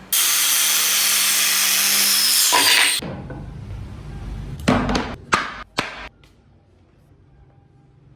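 A power tool cutting wood runs loudly with a steady hum for about three seconds, then stops suddenly. A few sharp knocks follow.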